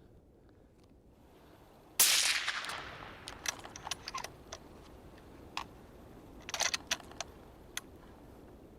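A single rifle shot about two seconds in: a sharp crack that dies away over about a second. Two clusters of short, sharp clicks follow.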